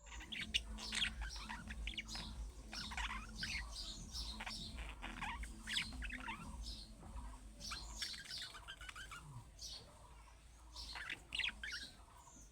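Budgerigar chirping and warbling in a fast, continuous chatter of short chirps and rapid trills, the contact-calling warble that other budgies answer.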